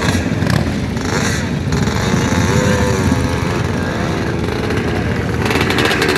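Several classic motorcycles ride slowly past one after another, their engines running in a loud, steady, overlapping rumble.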